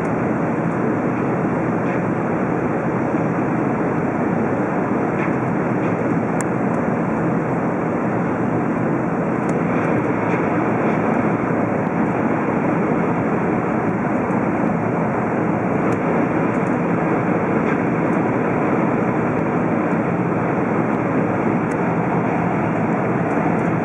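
Steady running noise of a Tohoku Shinkansen train travelling at speed, heard inside the passenger cabin.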